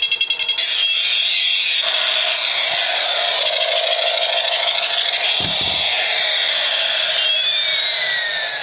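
Battery-powered toy helicopter running: its small electric motor and gears whir steadily as the rotor spins and it rolls along, with a constant high whine. A soft knock comes about halfway through, and near the end two tones glide apart, one rising and one falling.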